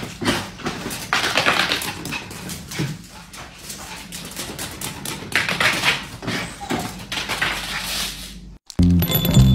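Small pet dogs making sounds in a few short noisy bursts, with scattered clicks. Music with a beat comes in abruptly near the end.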